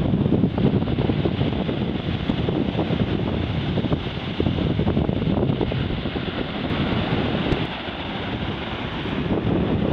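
Wind buffeting the microphone in gusts, a rumbling rush that swells and eases.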